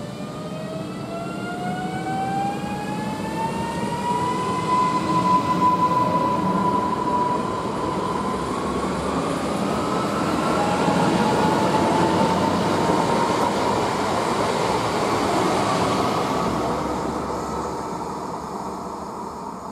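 Two coupled EN63A electric multiple units pulling out of the station, their traction motors whining and rising in pitch as the train gathers speed, then holding steady. Under the whine, wheel and rail noise grows as the carriages pass and fades near the end.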